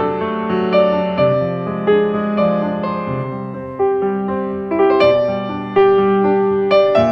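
Background piano music, notes struck about once or twice a second and left to ring.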